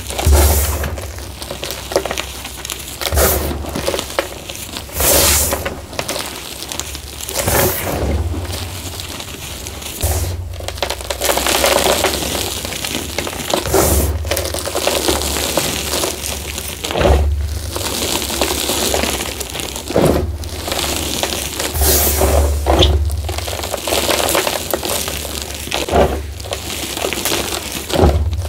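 Hands squeezing and pressing into a heap of crumbled reformed gym chalk, giving gritty crunches and powdery hissing. Louder crunches come in repeated strokes every two to three seconds.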